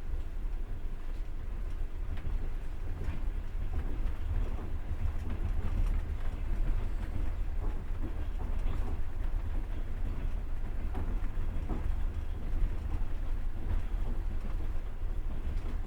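Passenger railway carriage on the move: a steady low rumble of the running train, with scattered knocks and clicks of the wheels on the rails.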